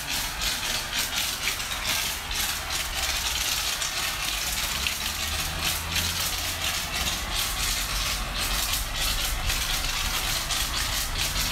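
Pressure washer spraying water onto a foam-covered SUV: a dense, fluttering hiss of spray over the low, steady hum of the washer's motor and pump.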